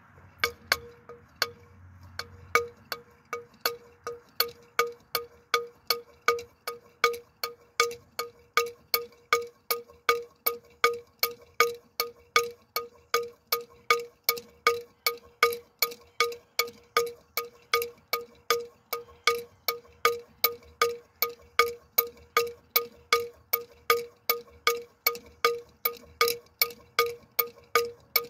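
1922 Eisenwerk Franz Weeren hard-cast-iron bell swinging and ringing, its clapper striking at a steady beat of about two strikes a second, each strike leaving a ringing tone. The first few strikes are uneven as the bell is set swinging, then settle into the even rhythm.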